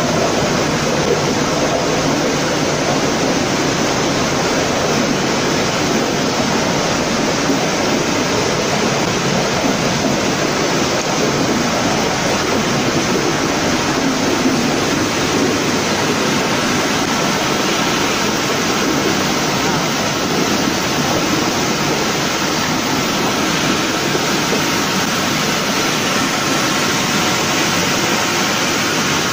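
Steady rushing noise of a running potato chip processing line, its conveyors, fryer and fans going together. A faint steady whine comes in about halfway through.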